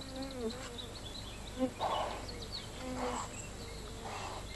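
An insect buzzing, its pitch wavering, with faint short bird chirps and a few brief soft noises.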